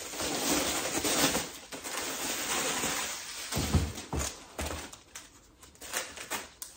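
Clear plastic wrapping crinkling and crackling as it is pulled off a woven wicker basket, then a few low thumps about three and a half seconds in, and short paper rustles and clicks near the end as packing paper is pulled from inside the basket.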